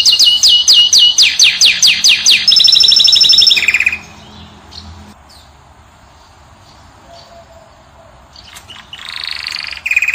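Finch singing: a fast series of repeated downward-sweeping high notes, about six a second, turning into quicker trills, stopping about four seconds in; after a quiet gap a loud trill starts again near the end.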